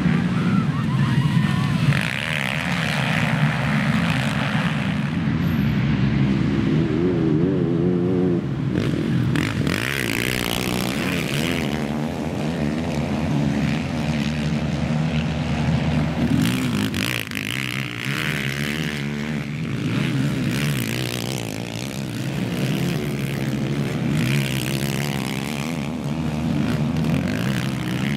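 Engines of many racing quads (ATVs) at high revs together, their pitch rising and falling over and over as they accelerate and shift gears.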